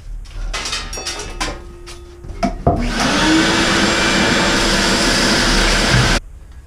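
Shop vac being set down and handled with some clattering, then switched on: its motor winds up to a steady whine, runs for about three and a half seconds and cuts off suddenly.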